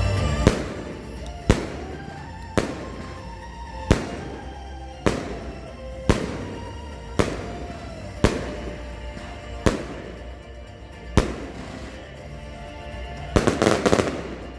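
Consumer firework battery firing single shots about once a second, each a sharp bang, then a quick flurry of several shots near the end. Music plays underneath.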